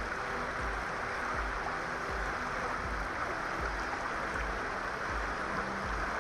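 River water rushing steadily past a rocky bank, with a low, soft thud repeating about every three-quarters of a second beneath it.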